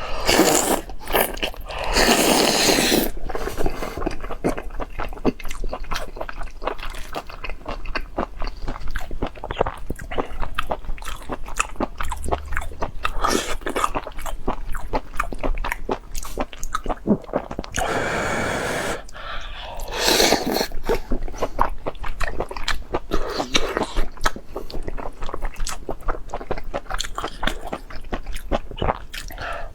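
Close-miked eating: continuous chewing with rapid crunching and biting, broken by two longer stretches of noisier sound.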